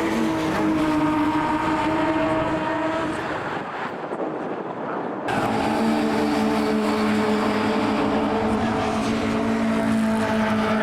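Classic touring car racing engines running at high, steady revs, with a sudden switch about five seconds in to another car's steady engine note.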